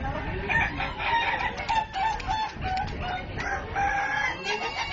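Several contest roosters crowing and clucking over one another in overlapping calls broken into short notes.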